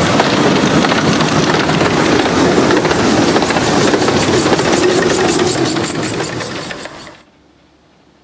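Narrow-gauge steam train passing close by: the locomotive and its coaches' wheels on the rails make a loud, fast, even rhythmic beat, which cuts off suddenly about seven seconds in.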